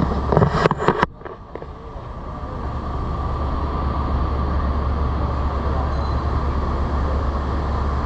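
Steady low rumble of wind buffeting the microphone on a ship's open deck, with a few loud gusts or knocks in the first second, then a brief drop before the rumble builds back.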